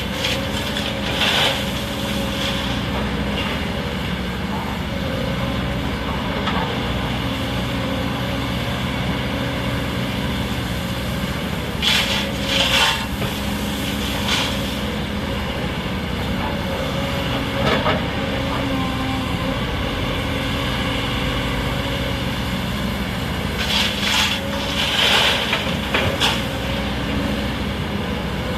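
Sany excavator's diesel engine running steadily while loading a dump truck, with short louder bursts of noise about a second in, around twelve and eighteen seconds in, and a longer cluster near the end.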